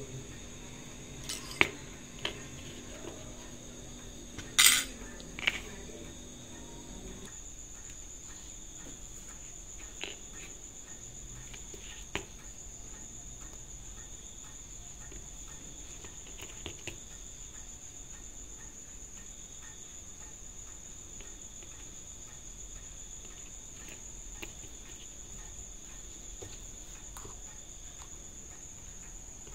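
Metal tweezers and a pin tool clicking and scraping on a Swatch chronograph's case and movement as it is worked apart. There are a few sharp clicks in the first seconds, the loudest about five seconds in, then scattered light taps. A steady high-pitched tone runs underneath.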